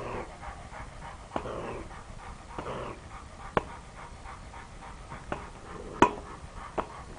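Coonhound panting fast and hard at a caged raccoon, with breathy sniffs and several sharp clicks. The loudest click comes about six seconds in.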